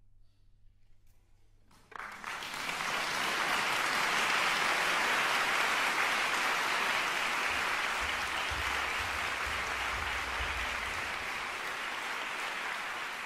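Audience applause that breaks out suddenly about two seconds in, after a brief hush, and then holds as dense, steady clapping that slowly fades, with a low rumble underneath for a few seconds in the middle.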